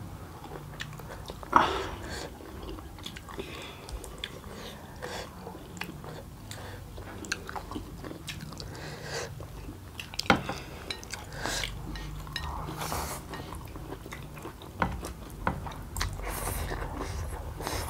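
Two people eating instant noodles with chopsticks: slurping noodles and chewing, with sharp clicks now and then at irregular moments.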